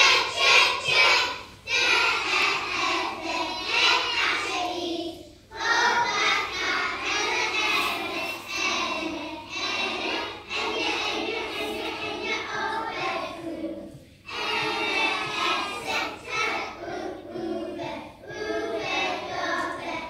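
A group of young primary school children singing together in unison, in phrases a few seconds long separated by short breaths.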